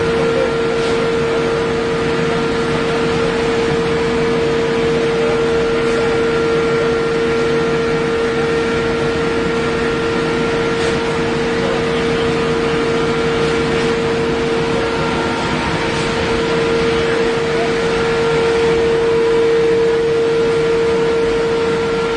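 Steel sheet equalizing (roller-levelling) machine running: a steady industrial hum with a strong, unchanging tone over an even mechanical noise.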